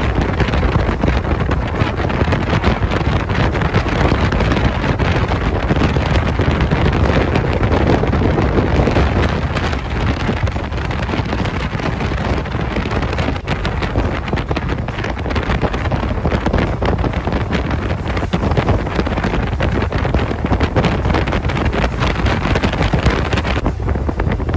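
Wind buffeting the microphone of a phone filming from a moving motorcycle: a loud, steady rush with the motorcycle's road and engine noise underneath.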